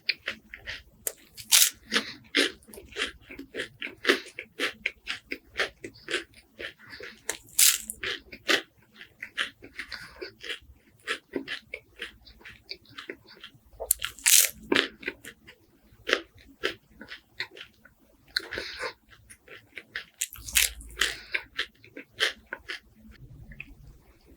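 Close-miked biting and chewing of crispy wafers with honey and walnuts: many irregular sharp crunches and crackles, with short pauses between bites.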